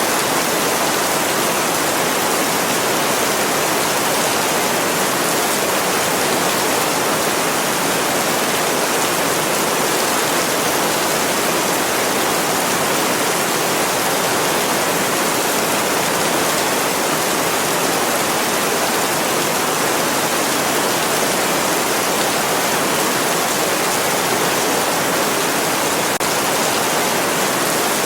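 Continuous heavy rain as an even, steady hiss, with no separate drops, thunder or changes standing out.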